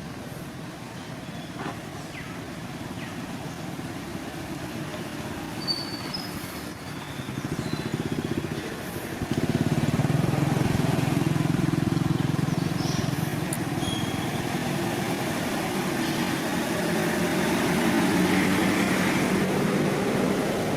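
A motor engine running steadily, growing louder about nine seconds in, with a few brief high chirps around it.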